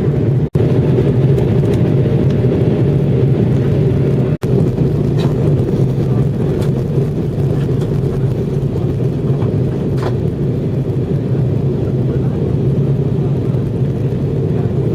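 Steady low engine and airflow rumble inside an airliner's cabin on its descent to land. The sound drops out for a split second twice in the first five seconds.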